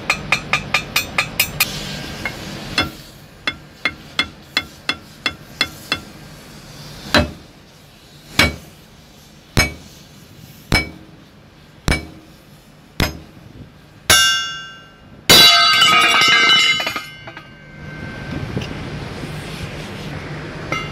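Hammer blows on the steel sprocket of a Komatsu D37EX-22 bulldozer being knocked loose: six heavy strikes about a second apart, after a run of quick lighter metal taps. Near the end come two loud ringing metallic clangs.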